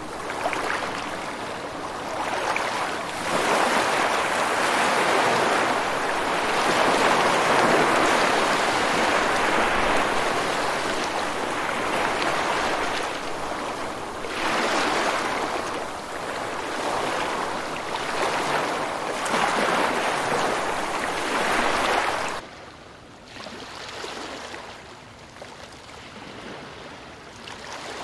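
Ocean waves washing in and out, a rushing noise that swells and falls every few seconds, turning much quieter near the end.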